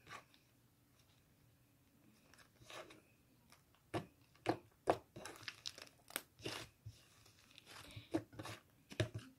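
Butter slime, softened with lotion, being stretched and squished by hand, giving irregular clicks, pops and crackles. They start about two and a half seconds in.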